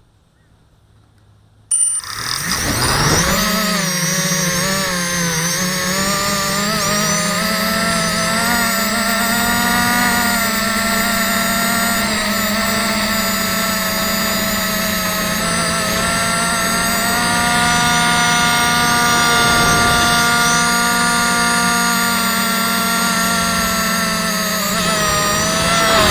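Quadcopter's electric motors and propellers buzzing steadily, cutting in suddenly about two seconds in, the pitch shifting slightly up and down with throttle.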